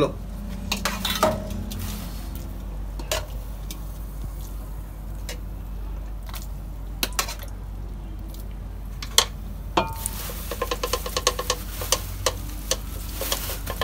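Metal spoon and ladle clinking and scraping against metal cooking pots as boiled chickpeas are spooned and tipped onto rice. Scattered single clinks give way, about ten seconds in, to a quick run of tapping. A steady low hum runs underneath.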